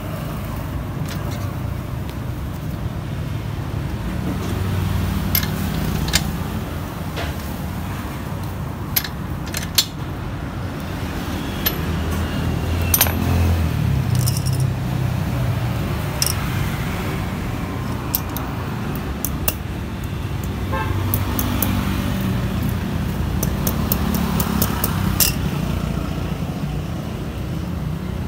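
Road traffic and vehicle engines running, a steady low rumble that swells and fades, with scattered sharp clicks and knocks.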